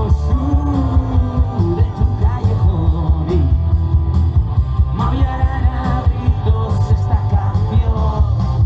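Live rock band playing electric guitars over a steady bass and drum beat, with a voice singing the melody.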